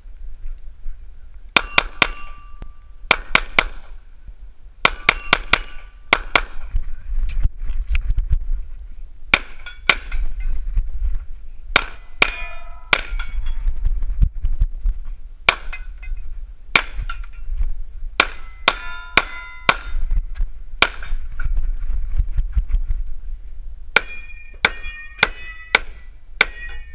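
Pistol shots fired in quick pairs, one string after another. Many shots are followed by the ringing of steel targets being hit.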